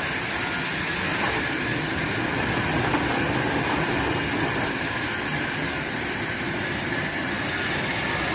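Sawmill log saw running steadily, a constant mechanical rushing noise with a thin high whine over it.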